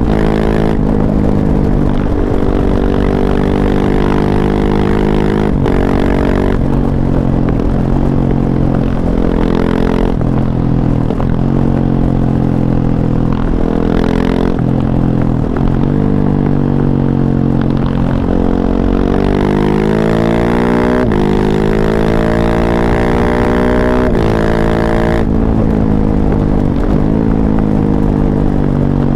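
KTM 690 SMC-R's single-cylinder engine, heard through an Arrow Race-Tech exhaust with the dB killer fitted, running under way. Its pitch climbs under throttle, breaks off and drops at each shift or throttle lift, then climbs again, many times over.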